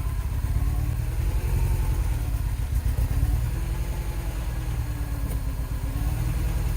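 A car engine idling steadily, a deep fast-pulsing rumble whose pitch drifts slightly up and down.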